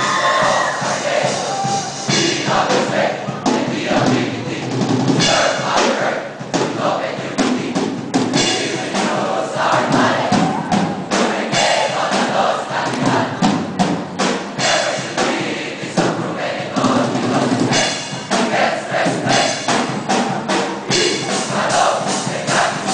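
A large cheering squad of students chanting and shouting together over loud music with a drum beat, with frequent sharp percussive hits.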